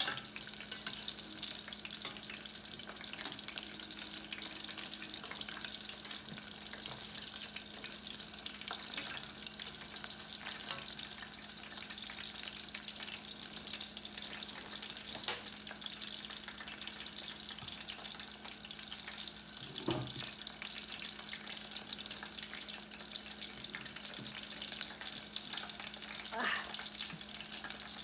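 Hot oil sizzling steadily as tempura-battered chicken pieces deep-fry in a stainless steel saucepan, with a couple of light knocks near the end.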